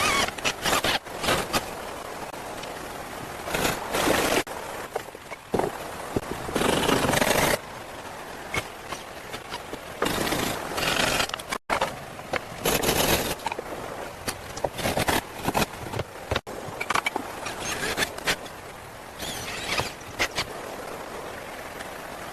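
Manual building work: a run of scraping and rustling noises with some short knocks, the sound cutting off abruptly twice between clips.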